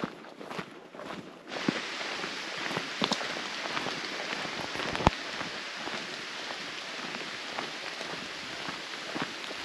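Footsteps on a forest dirt path, then about a second and a half in a steady hiss of rain falling on the foliage sets in abruptly and continues, with an occasional step or knock.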